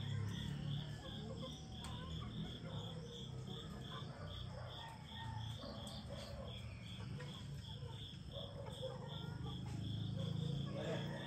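Insect chirping in a steady, even rhythm of about three high chirps a second, over a low steady rumble of the dawn ambience.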